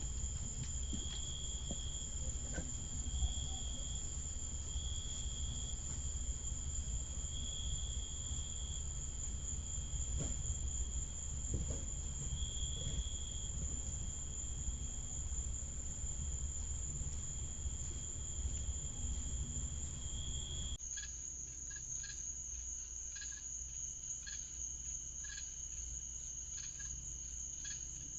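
Crickets chirping, picked up by a doorbell camera's microphone over a steady low hum and a constant high whine. About 21 s in the sound cuts abruptly to another recording, with quieter hum and chirps evenly spaced about once a second.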